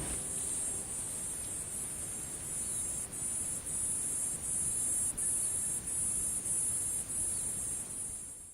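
Insects trilling: a high-pitched, steady shrill pulsing with brief breaks every half second or so, fading out at the end.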